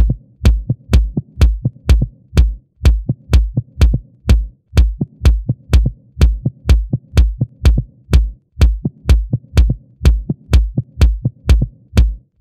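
Electronic dance music with a steady, heavy kick-drum beat.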